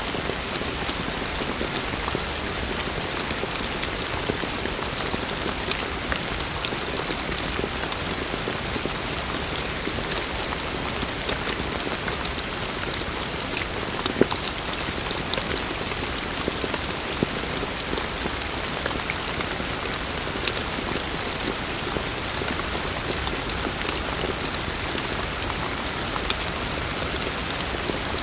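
Heavy rain falling steadily, a dense even hiss full of sharp ticks from individual drops, with a couple of louder drop hits about halfway through.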